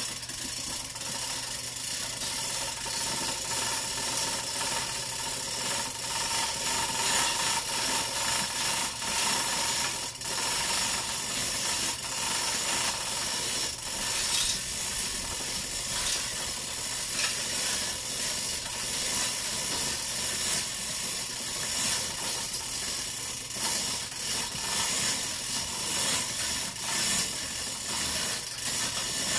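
Manual chain hoist being hand-pulled to lift a heavy electric drive unit: the chain rattling through the hoist with a rapid, continuous ratcheting click.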